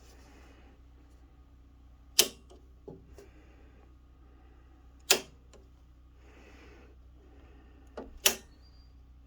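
Circuit breakers in a house electrical panel being snapped on one at a time, three sharp clicks about three seconds apart, with a few lighter clicks between. They are switching the branch circuits back on from a portable generator backfeeding the panel through an interlock.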